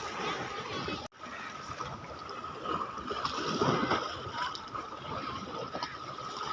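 Seawater washing and splashing at the shoreline, with the sound cutting out briefly about a second in.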